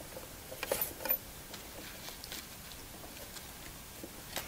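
Fabric and a zipper being handled and set in place under a sewing machine's presser foot: faint rustling with a couple of light clicks about a second in.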